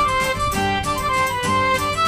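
Background music: a lively tune of quick, evenly paced notes led by a fiddle-like instrument.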